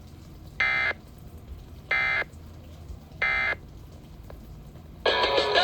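Three short, identical digital data bursts about a second and a half apart: the Emergency Alert System's SAME end-of-message code ("NNNN"), closing the flash flood warning broadcast. Music starts near the end.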